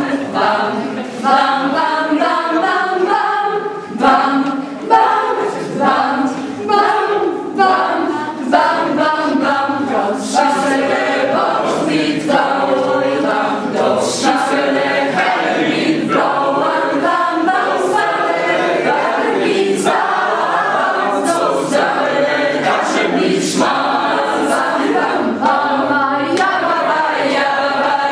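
A group of teenage boys and girls singing together a cappella, like a small choir. For the first several seconds they sing short separate syllables about once a second, then the singing turns smooth and continuous.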